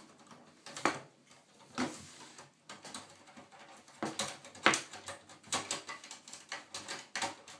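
Plastic side panel of a Sky+ HD box being handled and pushed onto the casing: irregular plastic clicks, knocks and scrapes.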